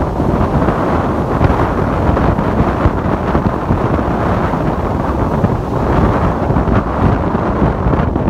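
Ocean waves washing in strong wind, with wind buffeting the microphone; a loud, steady noise heavy in the low end, with no separate crashes standing out.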